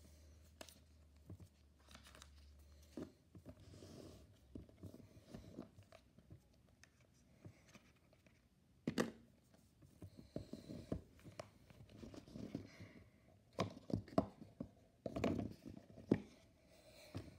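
Cardboard and paper packaging of an iPhone XR box handled by hand: rustling, scraping and sharp taps as the lid, paperwork sleeve and phone tray are moved. The louder bursts of rustling and clicks come about nine seconds in and again toward the end.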